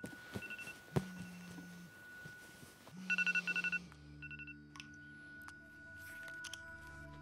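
iPhone alarm ringing in quick runs of high beeps, with the phone's vibration buzzing in bursts alongside. It stops about four and a half seconds in. Soft, sustained music tones then begin and swell, with a single knock near the first second.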